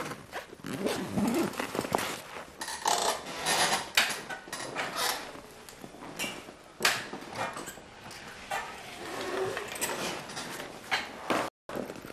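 Clothes and a fabric holdall rustling and being handled as the bag is packed, with scrapes and short knocks.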